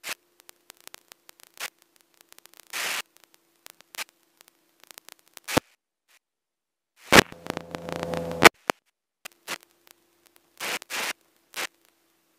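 Crackling static from an aircraft headset and intercom feed. It cuts in and out abruptly in short bursts over a faint steady hum, with a longer, louder buzzing stretch from about seven to eight and a half seconds in.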